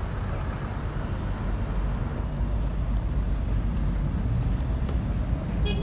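Steady low rumble of traffic and running vehicle engines.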